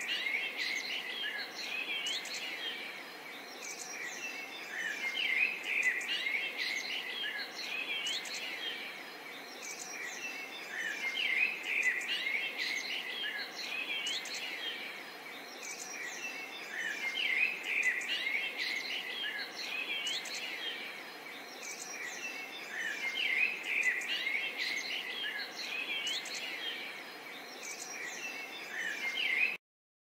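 A dense chorus of small birds chirping and twittering over a steady hiss of outdoor ambience. The chirping swells about every six seconds, like a looped nature recording, and cuts off abruptly near the end.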